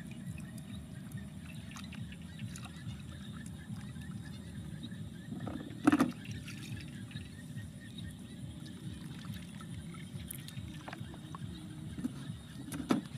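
Hands splashing and groping in a shallow muddy puddle while catching fish by hand, over a steady low rumble. A louder splash or knock comes about six seconds in and a smaller one near the end.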